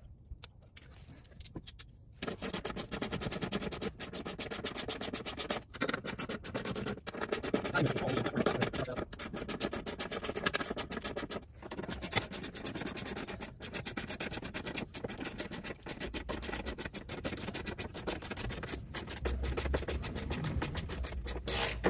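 Hand ratchet clicking fast and without a break as the skid plate's bolts are run in and tightened. It starts about two seconds in, with a few brief pauses.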